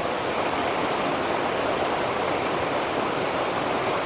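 Steady rush of water from the sixth stage of the Erin Ijesha waterfall.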